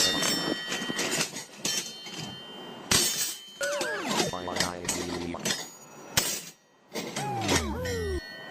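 A fast, edited jumble of sound effects: sharp clinks and crashes, some left ringing, and twice a swooping sound that slides down in pitch.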